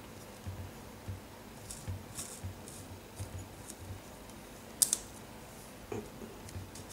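Light scraping and ticking of a small hand tool worked into a model trestle bridge, in short scattered strokes with soft handling knocks, and one sharp click about five seconds in.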